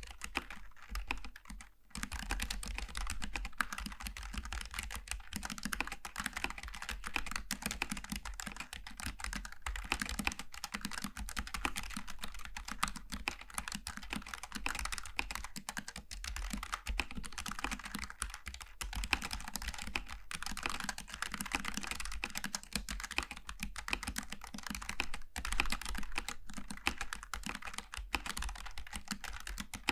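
Logitech G915 TKL low-profile mechanical keyboard with GL Tactile switches, typed on in a fast, continuous run of keystroke clicks, with a brief lull near the start.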